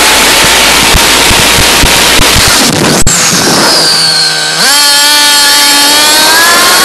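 A small nitro engine in a radio-controlled car, running at high revs with a high-pitched, buzzy note. About three seconds in the revs sag, with a brief falling whistle. Near the middle they jump back up and keep rising steadily.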